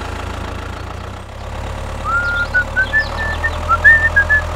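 Tractor engine running steadily at idle with a low hum. From about two seconds in, a run of short high-pitched chirps sounds over it.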